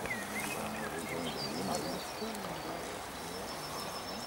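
Steady rush of a fast-flowing river, with birds chirping over it.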